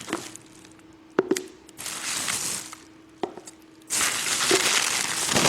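A few sharp clicks and knocks, then a steady rustling, crinkling hiss from about four seconds in, over a faint low hum.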